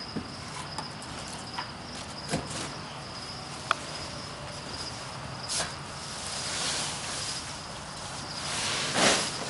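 Loose straw-clay mix rustling and shuffling as a pitchfork drags and tosses it out of a plywood loader box, with a few short knocks of the fork against the wood. The rustling swells louder about halfway through and again near the end.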